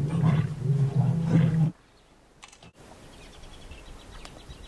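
A lion roaring: low, drawn-out calls that cut off abruptly under two seconds in. This is followed by faint quiet with a rapid, high repeated chirping.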